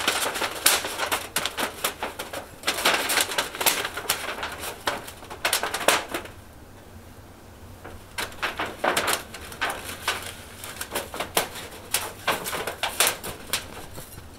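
Snow crunching and rustling in quick irregular bursts as gloved hands work the snow, scooping and packing it. The bursts are dense for the first half, stop for about two seconds, then come back more sparsely.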